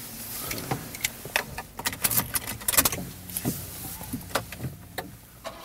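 A run of irregular sharp clicks and light rattles inside a car, as of small objects being handled in the cabin.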